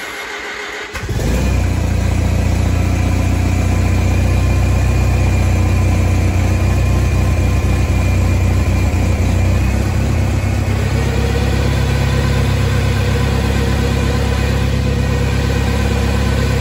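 1963 Oliver 550 tractor's four-cylinder engine finishes cranking on the starter with a little choke, catches about a second in, and runs steadily. It is driving the hydraulic pump to push the old fluid out of the drained system, and its note shifts slightly near the two-thirds mark.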